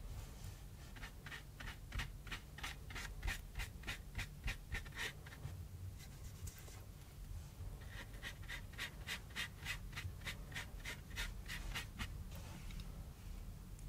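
A thin paintbrush dabbing and scratching gouache onto cardboard in quick, even strokes, about four a second. There are two runs of strokes with a pause of a few seconds between them.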